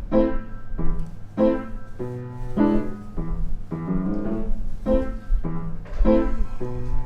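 Background music: piano chords struck about once a second over a steady low bass line.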